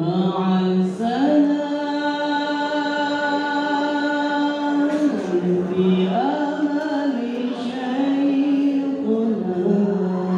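Young men singing sholawat, an Islamic devotional song in praise of the Prophet, into microphones, unaccompanied. They hold long notes that step up and down in pitch.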